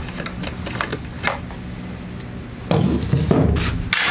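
Hand tools clinking and knocking on metal as the gas-tank bolts are worked loose on a Briggs & Stratton 8 hp snowblower engine. A few sharp knocks come about a second in, a louder clatter about three seconds in, and a sharp click near the end, over a steady low hum.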